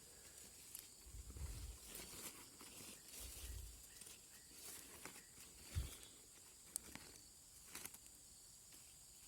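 Near silence: faint outdoor background with a few soft low thumps and several short clicks.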